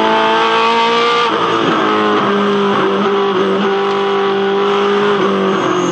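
Holden Commodore V8 Supercar's V8 engine running hard at high revs. About a second in, the pitch steps down as it shifts up a gear, then holds nearly level.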